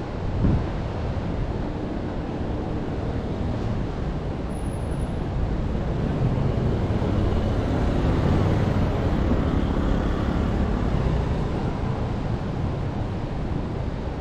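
A motor vehicle passing, swelling to its loudest a little past the middle and then easing off, over a steady rush of surf and wind.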